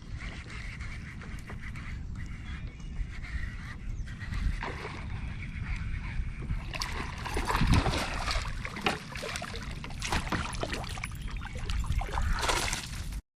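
Strong wind buffeting the microphone as a steady low rumble. From about halfway through, irregular crackles and knocks join in. The sound cuts off abruptly just before the end.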